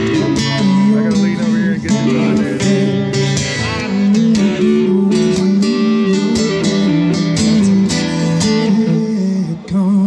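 Live band music, loud: a strummed acoustic guitar with an electric guitar playing alongside.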